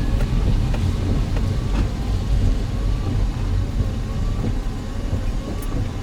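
Strong typhoon wind gusting and buffeting the microphone, a heavy, unbroken low rumble with a fainter rushing noise above it.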